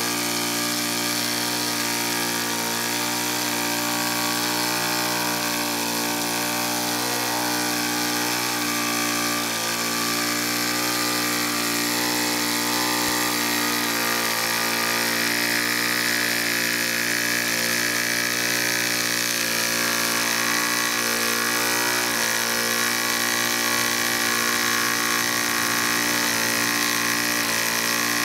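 Miniature brass model steam engines running steadily at an even speed on steam from a small fired boiler, a constant mechanical whirr.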